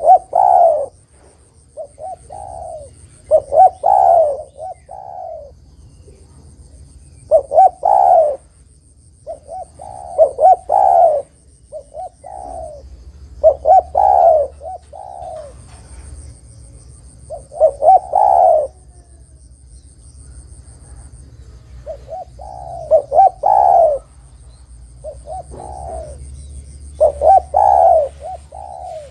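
Spotted dove (derkuku/tekukur) cooing: phrases of several short, low coos, repeated every few seconds.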